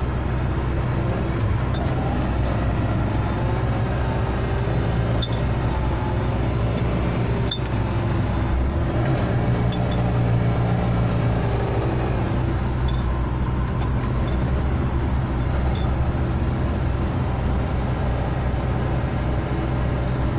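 A 4x4's engine running and road noise heard from inside the cabin while driving slowly. The engine note rises and falls a little, with a few light clinks.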